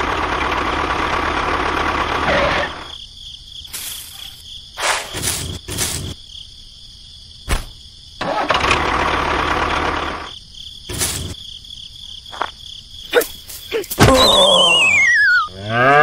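Dubbed-in sound effects: a steady engine-like rumble at first and again briefly in the middle, with scattered clicks and knocks between, then near the end a whistle gliding down in pitch.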